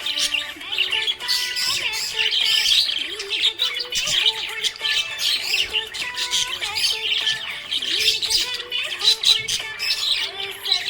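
Many small parrots chirping and squawking continuously over each other, with background music of soft held notes underneath.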